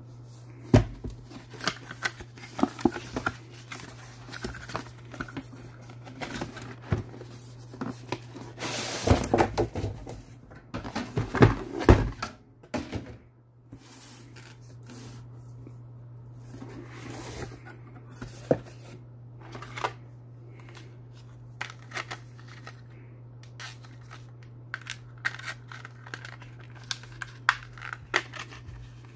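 Cardboard box being handled and opened: scattered knocks and clicks, with a louder stretch of scraping and rustling about nine to twelve seconds in as the inner box comes out of its printed sleeve, and light plastic-bag crinkling and clicks near the end. A steady low hum runs underneath.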